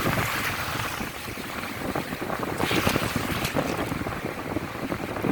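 Wind buffeting the microphone over the wash of sea waves, with a louder rush of water about halfway through.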